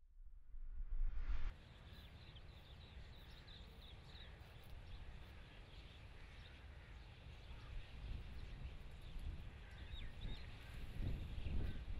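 Outdoor ambience: a low rumble of wind on the microphone with scattered short bird chirps. The rumble is louder for the first second and a half, then drops abruptly to a steadier background that swells a little near the end.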